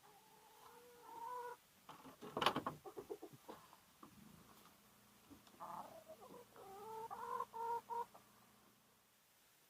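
Two drawn-out animal calls, each held about a second and a half with its pitch stepping between steady notes, one at the start and another about six seconds in, with a burst of clicks and rustling between them.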